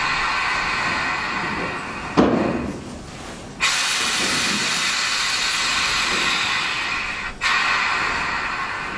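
Steady rushing hiss at a stationary railway hopper wagon being unloaded of superphosphate. A sharp bang comes about two seconds in, then the hiss drops away for about a second and a half and cuts back in suddenly, with another brief break near the end.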